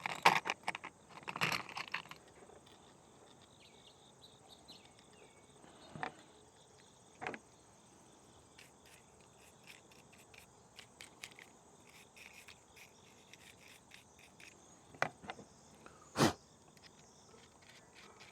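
Light clicks and clinks of small metal hardware being handled while a washer and lock nut are fitted onto a stainless steel bolt: a quick flurry in the first two seconds, then scattered single clicks, the loudest about sixteen seconds in, over a faint steady high-pitched tone.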